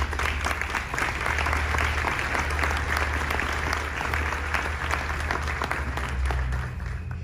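An audience applauding: a dense patter of many hands clapping that dies away near the end, over a steady low rumble.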